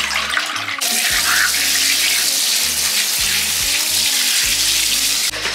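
Water splashing into a bathtub: liquid tipped out of a plastic tub, then a handheld shower spraying steadily onto cyanotype prints on the tub floor, rinsing them to develop the blue image. The spray cuts off suddenly near the end, and background music plays underneath.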